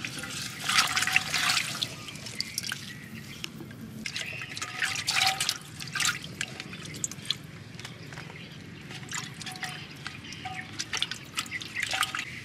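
A hand working among lemongrass, chilies and lime in wet contents at the bottom of an earthenware pot, making irregular bursts of splashing and dripping sounds. The loudest bursts come about a second in, around five seconds in, and near the end.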